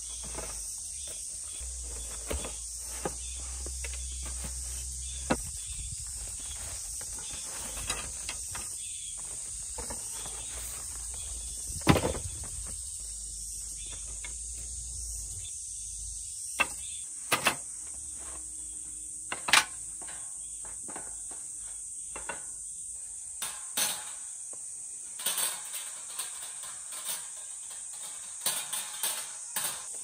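A steady, high-pitched insect chorus in the background, with scattered knocks and clatters as cardboard boxes and thin metal wire parts are handled and set down on a wooden slatted table. The loudest knock comes about twelve seconds in, with a run of smaller clacks near the end.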